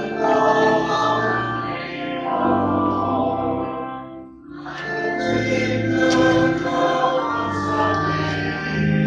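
A choir singing slow sacred music in long held notes, with a brief break between phrases about four seconds in.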